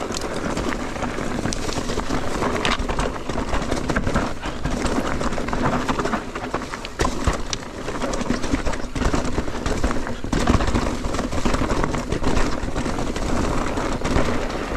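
Mountain bike riding fast down a rough dirt singletrack trail: a steady rumble of tyres and wind, broken by many quick knocks and rattles as the bike hits roots and bumps.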